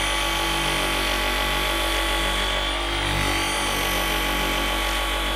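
Handheld electric polisher running steadily with a blue foam cutting pad on car paint, in the cutting step of buffing out sanding and wash scratches with polish.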